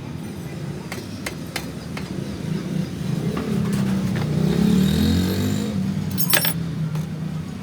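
A vehicle engine running, rising in pitch and loudness to a peak about five seconds in and then falling back, with scattered clicks and a sharper knock near the end.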